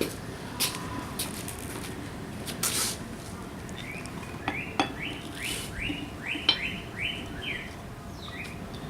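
A few sharp metal clinks from the tire-changing tools, then a run of about eight short high chirps, roughly two a second, in the second half.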